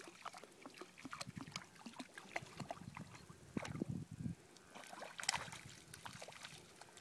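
Small irregular splashes and sloshing of steps through shallow floodwater.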